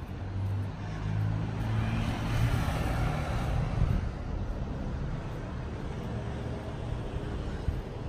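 A motor vehicle driving past: a low engine hum with tyre hiss that swells over the first few seconds and then fades away.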